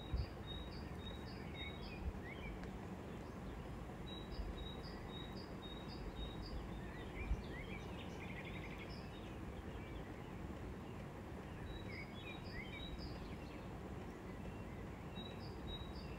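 Birds chirping over steady low background noise: runs of short, high chirps about three a second, with other short gliding calls now and then.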